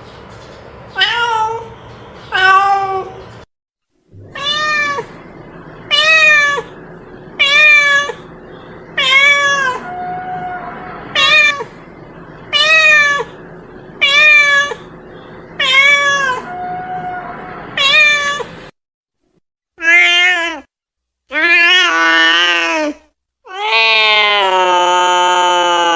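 A domestic cat meowing over and over, short calls that rise and fall in pitch about every second and a half. After a break of about a second, the meows come louder and longer, the last one drawn out for over two seconds.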